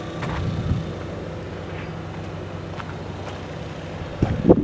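A motor vehicle running steadily with a low hum, with a short louder sound near the end.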